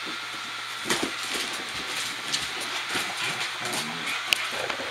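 A Shetland sheepdog and another dog play-fighting: low growls and grumbles, with claws clicking and scrabbling on a wooden floor and scattered sharp knocks, the loudest near the end.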